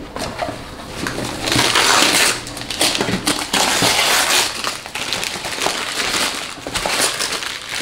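Christmas wrapping paper being torn and crumpled off gifts: a run of rustling and ripping, loudest about two seconds in and again about four seconds in.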